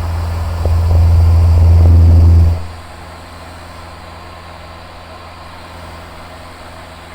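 Steady low drone of a Van's RV-7's engine and propeller as heard in the cockpit. It drops sharply in level about two and a half seconds in and carries on quieter and steady.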